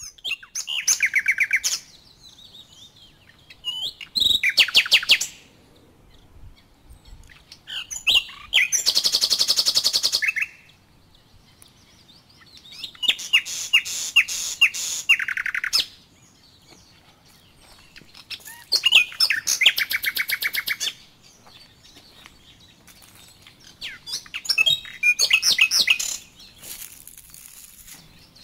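A songbird singing close by, repeating a short song of rapid trilled notes about two seconds long every four to six seconds.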